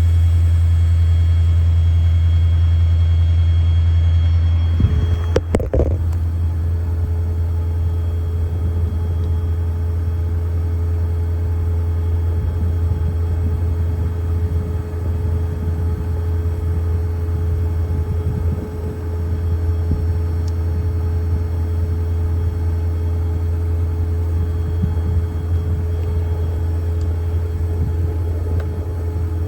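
Ford 6.7 L Power Stroke V8 diesel running with a steady low drone. About five seconds in there is a brief clatter and the sound shifts, with a steady higher hum running on with the engine after it.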